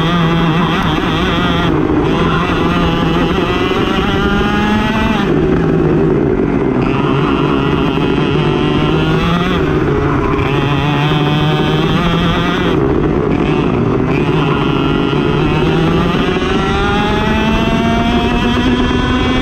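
Racing kart engine revving hard. Its pitch climbs for a few seconds, then drops sharply when the throttle is lifted, about four or five times in a row, as the kart accelerates and slows around the track.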